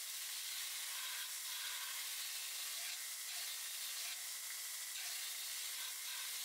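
Belt grinder's abrasive belt grinding the profile of a layered steel damascus knife blade: a steady hiss with small swells as the steel is worked against the belt.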